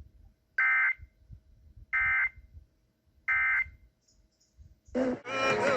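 Emergency Alert System end-of-message data tones: three identical short, buzzy digital bursts about 1.3 s apart. They mark the end of the severe thunderstorm warning just read. Near the end a louder, more varied electronic burst follows.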